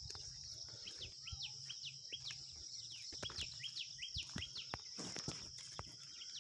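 Faint background birds chirping: many short falling chirps, several a second, over a steady high hiss, with a few soft clicks.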